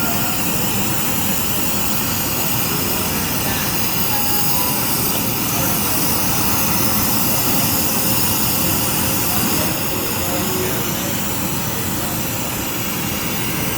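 Glassblowing bench torch burning with a steady, even hiss, as a broad annealing flame warms the glass piece.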